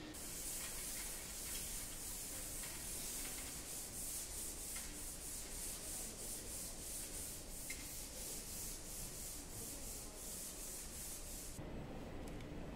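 Rhythmic hand-sanding or rubbing strokes on a wall surface: a high, scratchy hiss in even strokes, two or three a second, that stops abruptly near the end.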